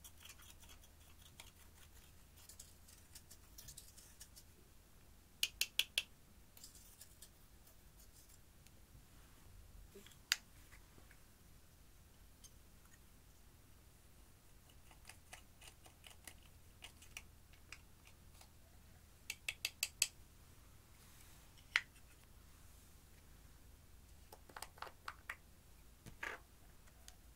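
A small metal spatula scraping and chipping pressed eyeshadow out of plastic compacts: short, sharp scratches and clicks, in quick runs of four or five strokes at a time with single clicks between.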